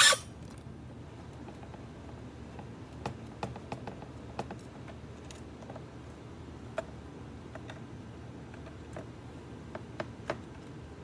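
A single loud knock right at the start, then scattered light clicks and taps of a small screwdriver and fingers on the plastic back panel of an LCD monitor as its four screws are taken out.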